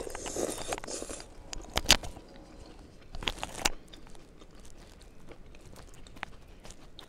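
Close-up eating sounds: a spoonful of ramen soup slurped in the first second, then chewing with a few sharp clicks and crunches, the loudest around the middle.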